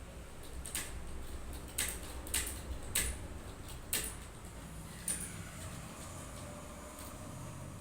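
Computer keyboard keys clicking one at a time, slowly and irregularly, about six presses in all. A faint falling squeak comes about five seconds in.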